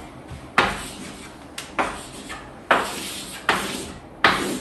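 Chalk writing and drawing on a blackboard: about five separate strokes, the longest about half a second.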